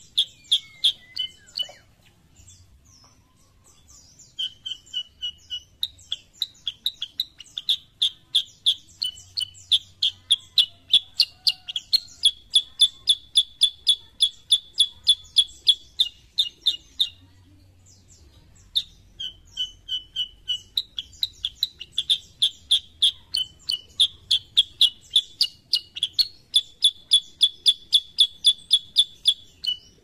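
Black-headed bulbul (kutilang sutra) singing: long runs of short, sharp, high chirps repeated about four a second, pausing briefly about two seconds in and again midway.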